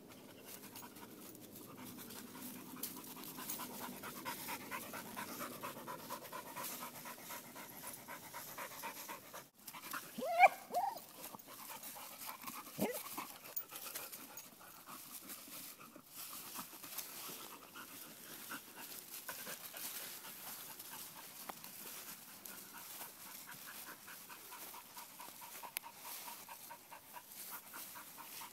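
A dog panting rapidly and steadily, with a brief louder sound that rises and falls in pitch about ten seconds in.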